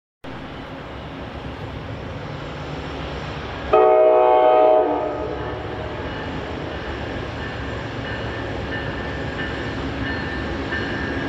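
Amtrak P42DC diesel locomotive sounding one horn blast of about a second, roughly four seconds in, over the steady rumble of the approaching train, which grows slowly louder.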